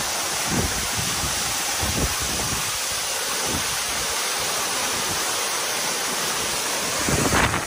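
Waterfall close by, its water falling onto rocks in a steady rush, with a few brief low thumps and a louder surge near the end.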